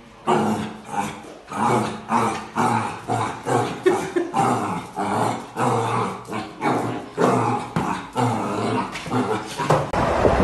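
A black puppy barking again and again at its own reflection in a mirror, in short bursts about three a second.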